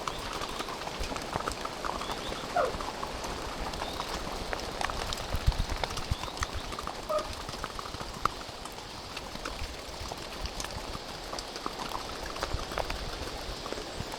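Horses' hooves clip-clopping in an irregular run of knocks, with a couple of short pitched calls in between.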